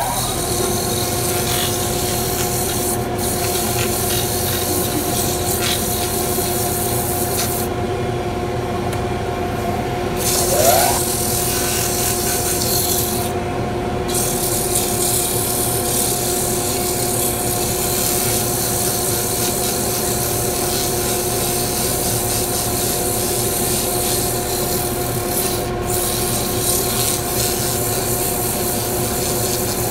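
Mini lathe running at a steady speed with a continuous rubbing, rasping sound of work against the spinning segmented wooden bangle, over the motor's steady hum. A short rising whine comes right at the start and again about ten seconds in.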